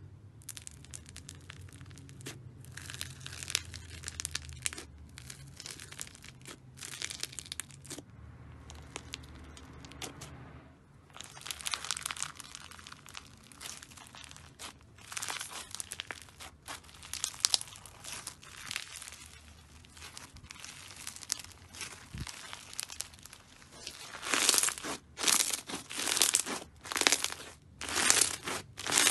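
Foam-bead slime (floam) being poked, stretched and squeezed by hand: a dense crunchy crackling of the beads, in bursts. Near the end, louder squeezes about once a second.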